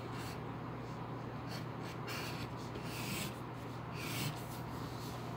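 Pencil scratching across paper in a string of short, uneven strokes, over a steady low hum.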